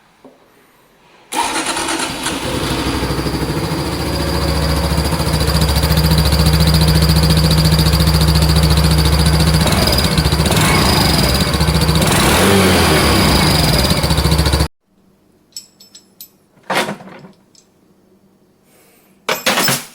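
Honda Super Cub's single-cylinder four-stroke engine starting and running through an exhaust fitted with a turbo-whistle muffler insert, which adds a steady high whistle over the exhaust note. The sound cuts off suddenly a little before the end, and a few sharp clicks follow.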